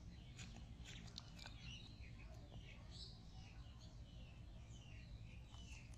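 Faint outdoor ambience: small bird chirps here and there over a low steady hum, with scattered soft clicks and rustles.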